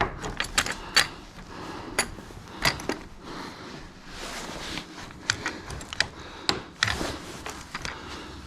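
Irregular metal clicks and knocks of hydraulic quick-connect couplers and a clamp tool being worked as they are pushed together. The couplers resist connecting, which is put down to pressure trapped in the hydraulic lines.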